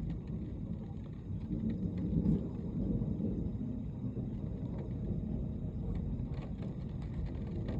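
Thunderstorm noise: a steady low rumble of wind and rain that swells a little a couple of seconds in.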